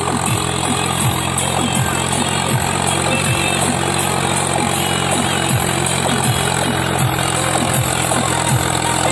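Background music with a steady beat of deep falling bass hits, about one every three-quarters of a second, over a steady low drone.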